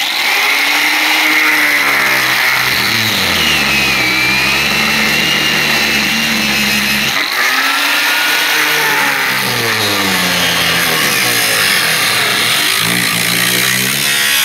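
Angle grinder with a cut-off disc cutting into a pickup's ribbed steel bed floor. It runs loud and continuous with a high whine, its motor pitch sagging and recovering as the disc bites. There is a brief dip about halfway through.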